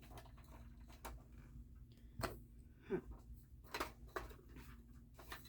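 Scattered light clicks and taps of small plastic toy parts being handled and fitted onto a toy helicopter, about six of them, with one short falling squeak about three seconds in.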